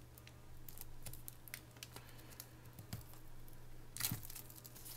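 Faint rustling and scattered light taps of hands opening a cardboard DVD box set from the top and sliding the cases out, with a louder rustle about four seconds in.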